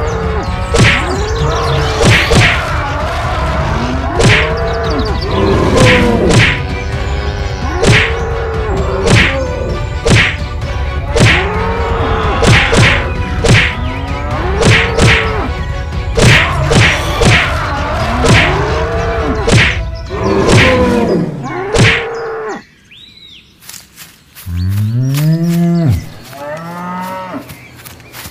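Cartoon fight sound effects: overlapping cattle moos and bellows, with a sharp whack about once a second as the bulls butt. About three-quarters through it breaks off briefly. Then separate deep moos follow, each rising and falling in pitch.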